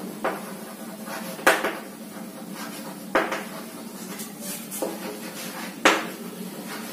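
Chalk tapping and scraping on a chalkboard as words are written: about five sharp taps, a second or so apart, over a steady low hum.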